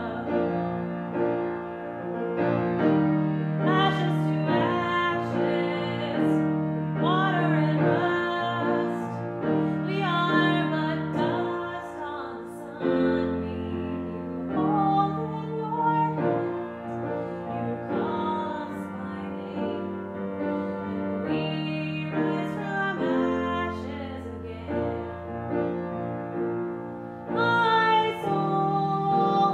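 A woman singing a song while accompanying herself on a grand piano.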